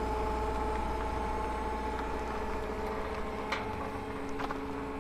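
Forklift engine running at a steady speed with a steady whine over it, while the lifted drive shaft is handled; a couple of light knocks come in near the end.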